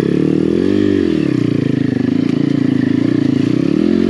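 Apollo RFZ pit bike's swapped-in 150cc single-cylinder engine pulling uphill under load. It revs up and falls back about a second in, runs steadily, then rises again near the end.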